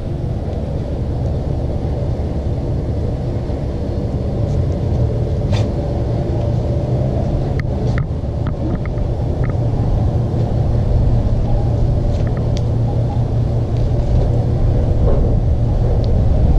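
A steady low engine rumble that grows slightly louder, with a few short clicks.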